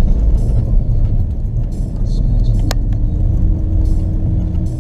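Steady low rumble of engine and road noise inside the cabin of a moving Ford Fiesta 1.0 EcoBoost, with a single sharp click about halfway through.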